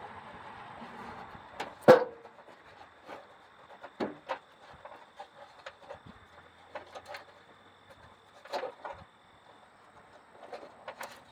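Scattered clicks and knocks of hands and tools working among an engine's wiring harness and fittings, the loudest a sharp knock about two seconds in.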